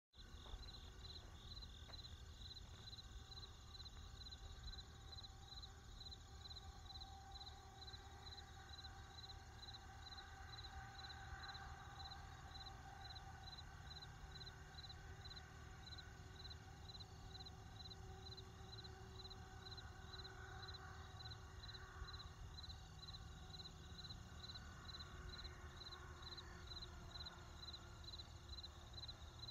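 Faint crickets chirping in a steady, evenly spaced rhythm over a low, steady rumble of distant traffic.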